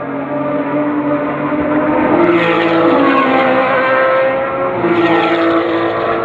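Race car engines running on the circuit, their pitch gliding up and down. They get louder about two seconds in and again around five seconds.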